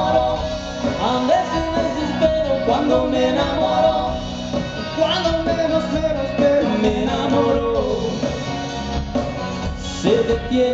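Live band performance: male vocalists singing over acoustic guitar, bass and drums.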